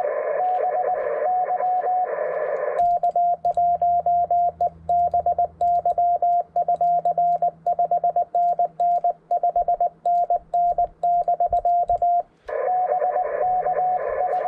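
Morse code from a ham radio transceiver: a single keyed tone sending dots and dashes. At first it comes over receiver hiss; about three seconds in the hiss cuts out and a clean sidetone keys out a long CW transmission. Near the end the hiss and received Morse return.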